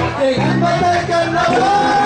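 A small live band playing Latin-style music, with a voice singing long held notes over the instruments.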